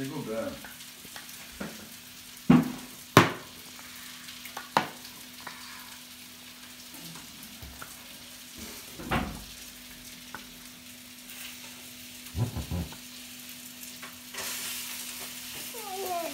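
A small plastic toy knocked and clattered against a plastic high-chair tray: scattered sharp hits, the loudest about two and a half and three seconds in, with a quick cluster of taps a little past twelve seconds. A steady low hum runs underneath.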